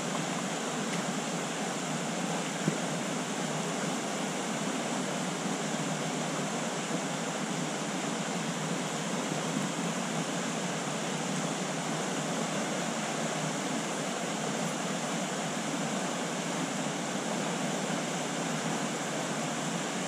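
Steady rush of a small trout stream running over rocky riffles.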